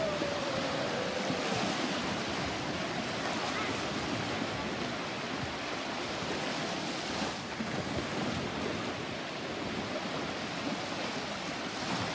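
Small sea waves washing in on the shore, a steady rush of surf. A voice calls out briefly at the start, gliding down in pitch.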